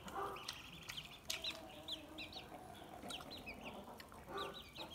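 Domestic chickens clucking, with short high calls repeating throughout, a few sharp clicks, and a lower cluck near the end.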